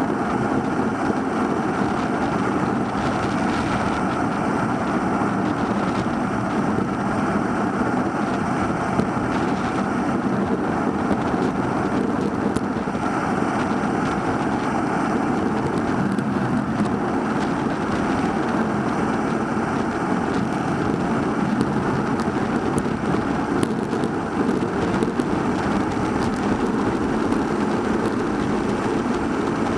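Steady rushing wind and road noise picked up by a Cycliq Fly 12 camera mounted on a bicycle riding along a road, unchanging throughout.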